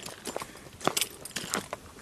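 A hiker's footsteps on a trail: a few irregular, scuffing steps.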